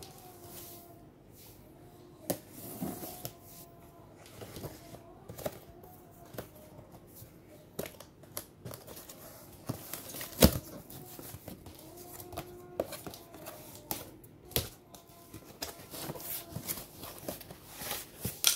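A knife cutting packing tape on a cardboard box, with scattered sharp taps, scrapes and cardboard rustling as the box flaps are worked open; the loudest knock comes about halfway through.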